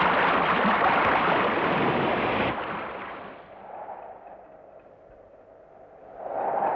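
A steady rushing noise that drops sharply about two and a half seconds in and fades to a faint hiss. A soft sustained tone swells up near the end.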